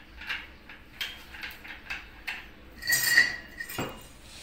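Small metal parts clinking and clattering as they are handled by hand, with a brief ringing metallic scrape about three seconds in and a sharp knock just after.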